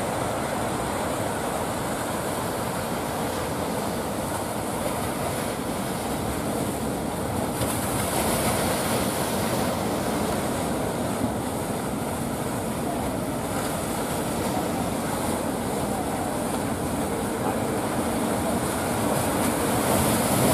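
Ocean surf breaking continuously, a steady rush of water with no clear rises or pauses.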